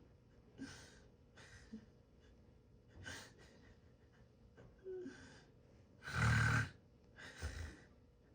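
A person snoring: about six breathy snores and breaths at irregular intervals. The loudest, about six seconds in, has a deep low rumble.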